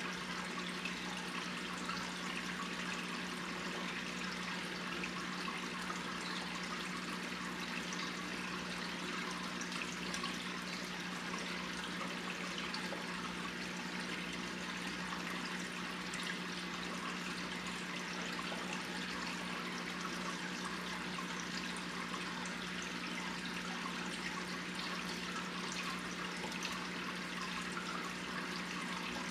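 Aquarium water bubbling and trickling without a break from the tank's air stream and filter, over a steady low hum.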